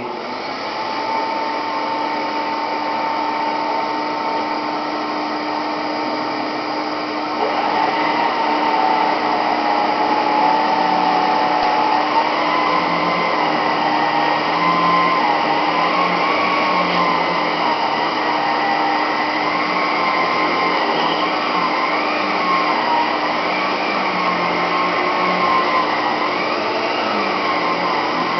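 Electrolux 2100 canister vacuum cleaner switched on with a click, then running with a steady motor whine. About seven seconds in it gets louder and its pitch begins to waver up and down as it works.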